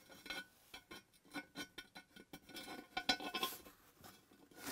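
Faint handling of a ceramic toilet cistern as plastic bolts with rubber bungs are pushed through its mounting holes: a scatter of light clicks, taps and scrapes of plastic against ceramic.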